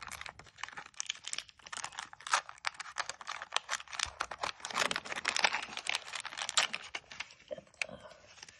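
Wax paper wrapper of a 1989 Topps baseball card pack crackling and crinkling as it is peeled open and unfolded, a dense run of sharp crackles that thins out near the end.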